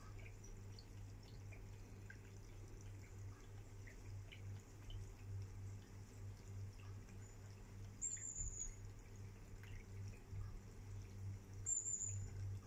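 Faint high chirps and squeaks from a tablet's speaker playing a video of birds and squirrels for a cat, over a low steady hum. There are two brief, wavering, higher chirps, one about two-thirds of the way in and one near the end.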